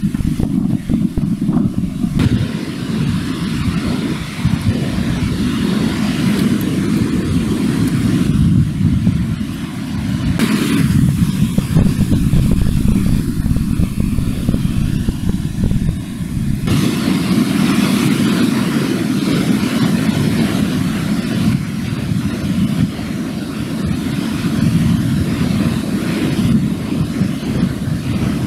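Wind buffeting the camera microphone: a loud, steady low rumble with a fainter hiss above it.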